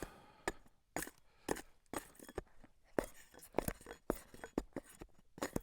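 Irregular sharp knocks and taps of cedar being worked by hand, about two a second, as shakes are split and trimmed.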